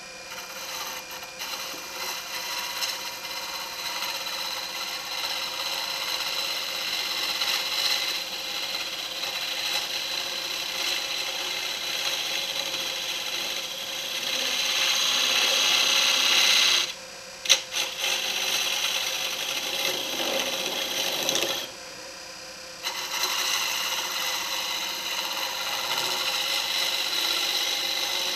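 Wood lathe spinning a wood blank at about 1,000 RPM while a hand-held turning tool cuts along it to smooth the cylinder, a continuous hissing scrape over the machine's steady hum. The cut breaks off twice for about a second each, roughly two-thirds of the way through.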